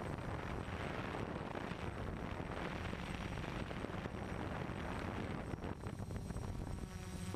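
Steady whir of a camera drone's motors and propellers heard from on board, with two faint steady high tones and wind buffeting the microphone.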